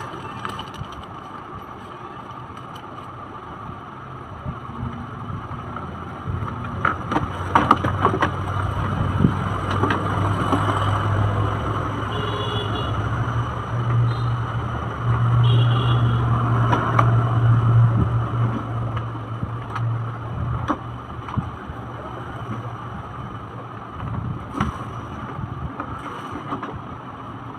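Plastic wheels of a toy ride-on swing car rolling on a tile floor as it is pushed by hand: a low rolling rumble with a few clicks and knocks. The rumble builds about a quarter of the way in, is loudest around the middle and fades well before the end.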